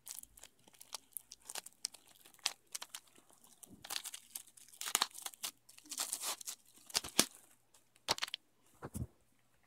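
Crinkling and rustling of a plastic shrink-wrap, mixed with sharp clicks and knocks of handling, densest in the middle.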